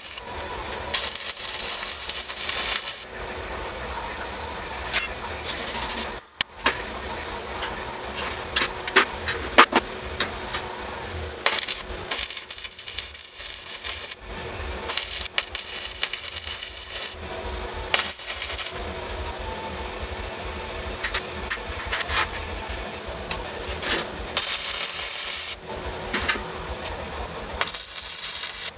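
Stick welding on steel tubes: the arc crackles and sputters steadily with sharp pops, breaking off briefly and restarting a few times.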